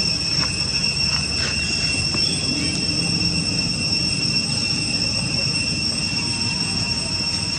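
Steady, unbroken high-pitched insect drone over a low outdoor rumble, with a few faint clicks.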